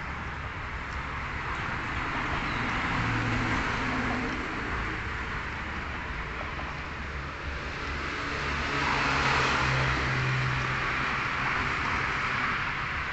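Toyota Sport Rider's 3.0-litre D-4D common-rail four-cylinder diesel idling, growing louder for a couple of seconds about nine seconds in.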